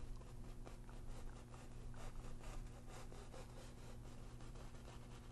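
Paintbrush scrubbing and stroking paint onto a stretched canvas, a run of faint, quick scratchy strokes over a low steady hum.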